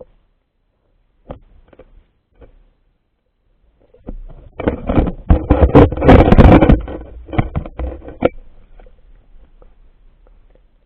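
Pond water splashing: a few faint sloshes, then a loud burst of rapid, irregular splashes lasting about four seconds that trails off.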